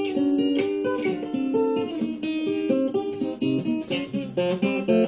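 Acoustic guitar playing an instrumental passage of picked notes and strums, the notes held longer at first and coming quicker and shorter in the second half.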